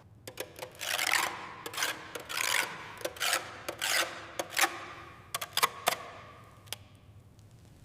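A hand tool rasping on wood in a series of strokes, about one a second, with a few sharp clicks among them, fading out near the end.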